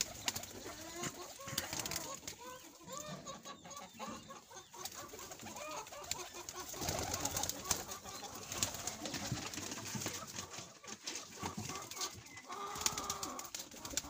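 Domestic pigeons cooing repeatedly, with scattered sharp clicks and knocks.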